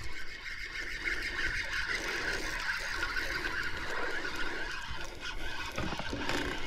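Spinning reel being cranked through a retrieve, with a steady high-pitched hum under it.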